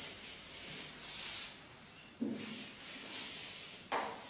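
A duster wiping a whiteboard in several swishing strokes. A short knock comes near the end.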